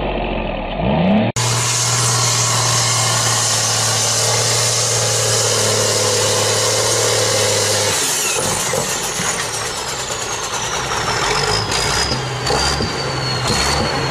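Diesel tractor engine running hard under heavy load, pulling a sled with its front wheels lifting. The sound changes at an abrupt cut about a second in. Over the last several seconds a high whine falls slowly in pitch.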